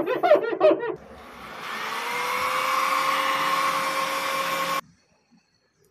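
Handheld hair dryer switched on, its motor whine rising as it spins up, then blowing steadily with a rushing air noise. It cuts off suddenly about a second before the end.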